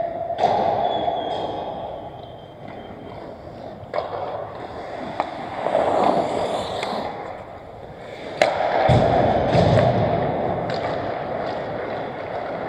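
Hockey skates scraping and carving on rink ice, the scrape swelling and fading as players skate and stop, with several sharp clacks of sticks and puck, the loudest about eight seconds in.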